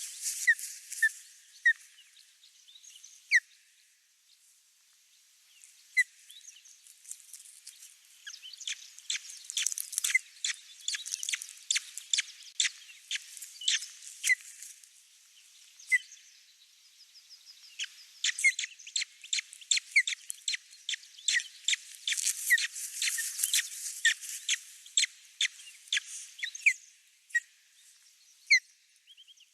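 Baby birds in the nest cheeping: many short, high chirps in quick runs, densest about ten seconds in and again from about eighteen to twenty-seven seconds in, with scattered single chirps between.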